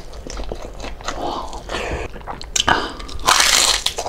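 Crunching and chewing of crispy lechon kawali (deep-fried pork belly): irregular crunchy bites, the loudest crunch about three seconds in.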